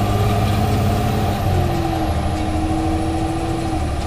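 Cummins ISL 8.9 inline-six turbodiesel of a Thomas Saf-T-Liner HDX school bus running, heard from inside the passenger cabin as a steady low drone.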